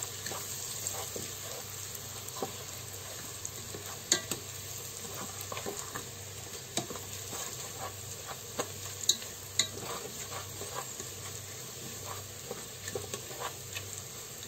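Onions, garlic and whole spices sizzling in butter in a multicooker's inner pot, stirred with a spatula that scrapes and clicks against the pot again and again.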